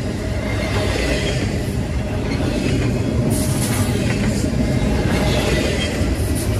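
Long freight train rolling past at track speed: a steady, loud rumble of steel wheels on rail with scattered clicks and a brief high hiss of wheel squeal about three seconds in.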